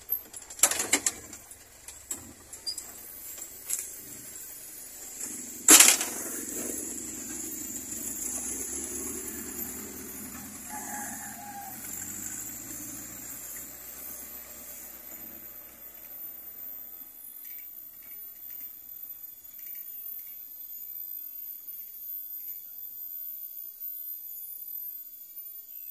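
Old mini pickup truck's engine running as the truck drives off, fading away over about ten seconds. A single loud knock comes about six seconds in, with a few smaller clicks near the start.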